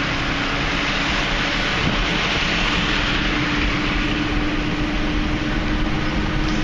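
Steady road noise of a moving vehicle heard from inside the cabin: an even hiss of tyres and wind, with a steady hum running under it.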